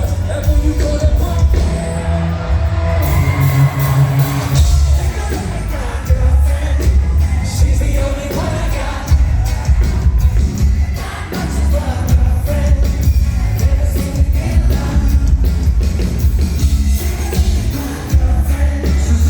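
Live band playing a pop-rock song with a sung lead vocal, heavy bass and drums, recorded from the audience in a large hall, with some crowd noise.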